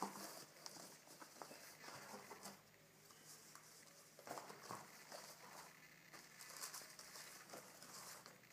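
Faint rustling and shuffling of paper envelopes and loose stamps as hands sort through a cardboard box, with scattered soft ticks of paper.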